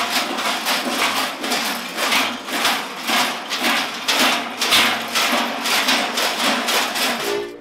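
Large bells strapped to the backs of Klaubauf (Krampus) figures clanging together as a group walks, many bells jangling at once in a steady rhythm of about three clashes a second.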